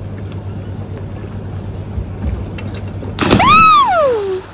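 A person jumps off the dock into the sea, hitting the water with a loud splash about three seconds in. A shout rises and then falls in pitch just after the splash.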